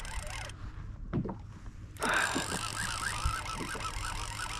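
Fishing reel being cranked steadily on a boat rod, its gears running, while reeling in a hooked fish that the angler takes for a conger eel. The sound is muffled briefly and comes back louder about two seconds in.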